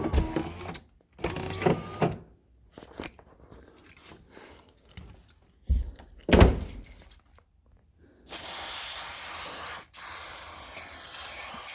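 A few knocks and rubbing sounds, the loudest a heavy thump about six seconds in. Then an aerosol can of wet-type power-window cleaner sprays in two long, steady hisses with a brief break between them.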